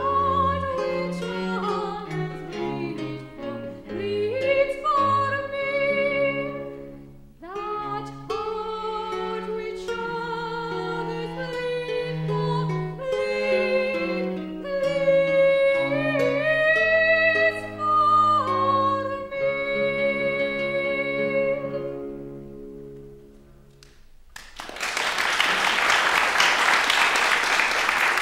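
A female classical singer performing a Baroque song, accompanied by classical guitar and cello. The song ends with a fading final chord, and applause breaks out near the end.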